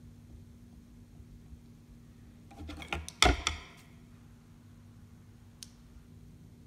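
A brief clatter of clicks and knocks, a little after halfway, as craft tools or materials are handled and set down on a work table, over a faint steady hum. A single faint tick follows near the end.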